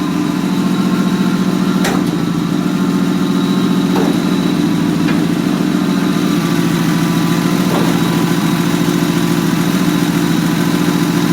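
Chrysler slant-six engine idling steadily, with a few faint clicks over the even running.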